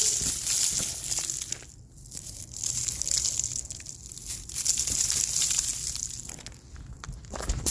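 Ice crunching and crackling, a rough, hissing crushing noise that swells and fades in long stretches with a few sharp cracks, as a coating of freezing-rain ice is broken and crushed.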